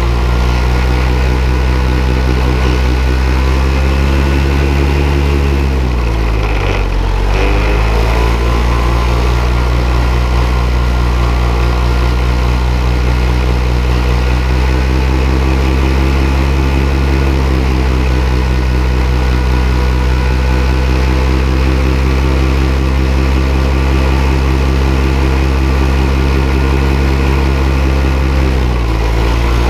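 Powered paraglider's paramotor engine and propeller running steadily in flight, the revs dipping and coming back up about six seconds in and again near the end.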